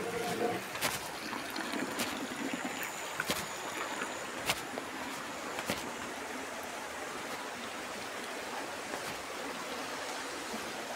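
Mountain stream and spring water running over rocks and trickling from a pipe into a stone basin, a steady rushing hiss. A few sharp ticks sound in the first half.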